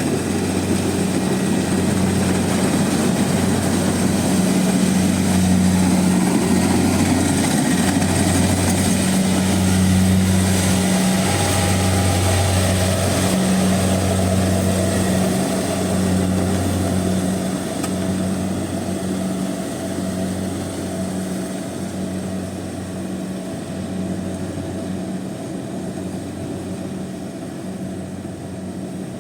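Rice combine harvester running steadily, its engine hum wavering about once a second, growing gradually quieter over the last several seconds.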